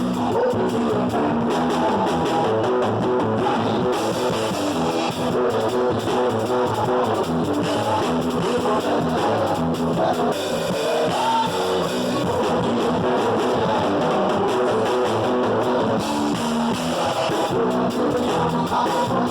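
Rock-style band music with guitar and drums, playing continuously.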